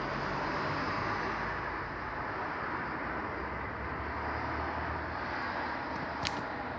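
Steady outdoor street noise, a rumble of passing traffic, with a single sharp click about six seconds in.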